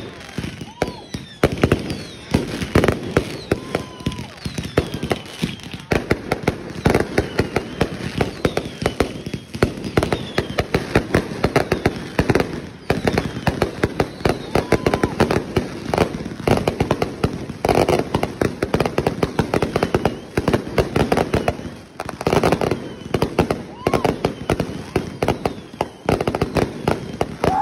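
Fireworks going off in a dense, rapid barrage of sharp cracks and bangs, several a second.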